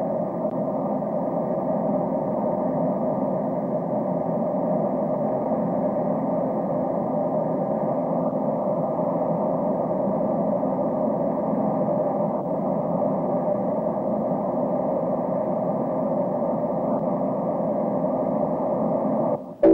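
Seaplane's propeller engine running steadily in flight, an even rushing noise that cuts off suddenly just before the end.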